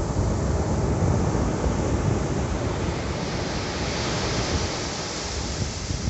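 Sea surf breaking and washing up a sandy beach. The hiss of the wash swells about halfway through, with wind buffeting the microphone underneath.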